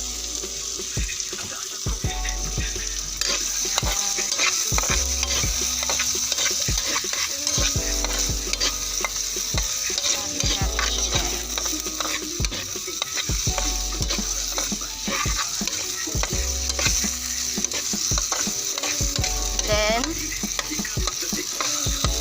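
Canned beefloaf frying in oil with sautéed garlic, onion and tomato, sizzling steadily while it is stirred, with frequent quick scrapes and taps against the pan.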